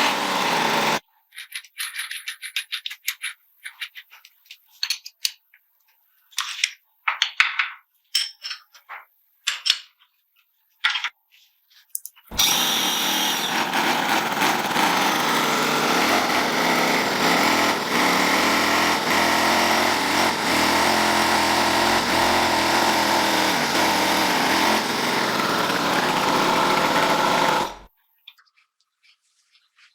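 Scattered short, sharp work noises, then a power tool running steadily for about fifteen seconds before cutting off abruptly near the end.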